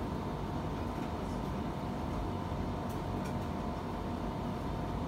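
Steady room hum and hiss from building or projector equipment, with faint steady tones in it and a few faint high clicks.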